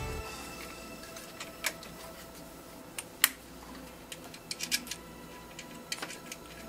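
Scattered light clicks and taps of hands handling the alternator's wiring connector and terminal, the sharpest about three seconds in and a quick cluster near the end.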